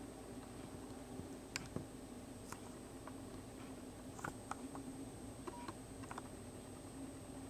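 Quiet room tone: a steady low hum and a thin high whine, with scattered small clicks and taps, a cluster of them near the end.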